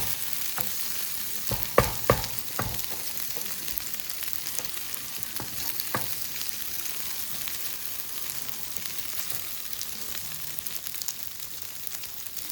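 Yakisoba noodles sizzling in a hot pan, a steady hiss, with a few sharp clacks of a cooking utensil on the metal about two seconds in and once more around six seconds.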